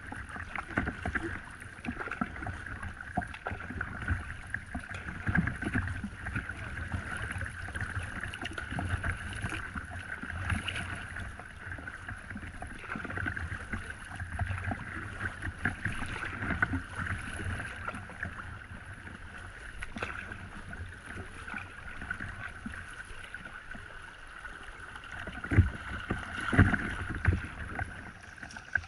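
River water splashing and rushing against the bow of a paddled boat, with irregular paddle-stroke splashes and wind buffeting the microphone. A few louder splashes or knocks come near the end.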